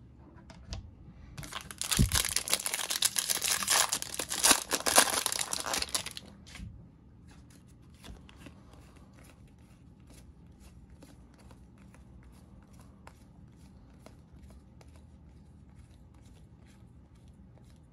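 Wrapper of a Topps baseball card pack being torn open and crinkled for about five seconds, starting a second or so in. After that come faint light clicks, about two a second, as the cards are handled.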